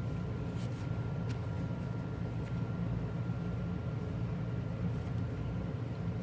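Steady low rumble of background noise with a faint steady tone above it, and a few faint light clicks.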